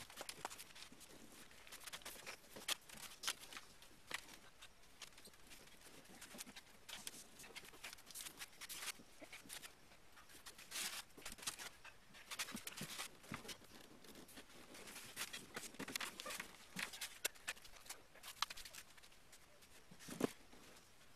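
Faint, scattered scrapes, knocks and rustles as a large boat hull resting on tires is pushed and rocked over onto its side, with a somewhat louder thump near the end.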